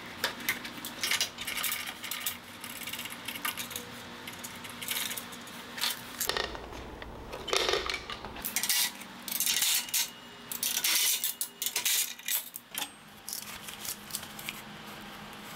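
Scattered small metallic clicks and clinks from hands working engine wiring connectors and small hardware on a steel diamond-plate table, with a duller knock around seven to eight seconds in.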